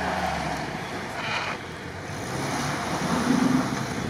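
Suzuki Jimny crawling through snowy ruts: its engine running at low revs under the hiss of tyres churning snow, with wind buffeting the microphone.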